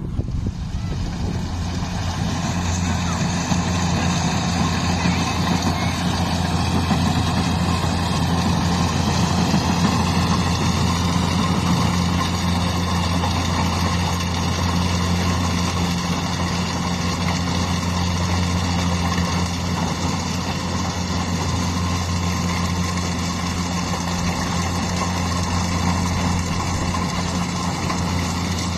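Engine of a rice-harvesting machine running steadily, with a higher whine that rises slightly in pitch about eight to eleven seconds in and then holds.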